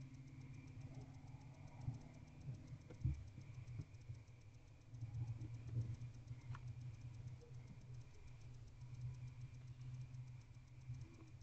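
Steady low hum with a few faint, scattered clicks and scrapes: a barn owl shifting and tearing at a rodent on the floor of a wooden nest box.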